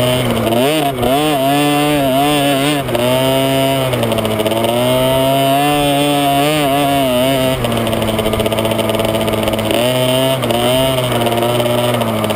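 Small two-stroke youth motocross bike engine, heard up close from the bike, revving hard with the throttle. Its pitch swings up and down in quick blips at first, then holds high and steady, drops off about seven and a half seconds in, and climbs again near the end.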